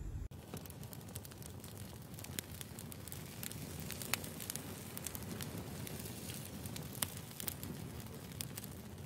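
Wood fire crackling in a steel mesh-screened fire pit, with irregular sharp pops; the loudest come about four and seven seconds in.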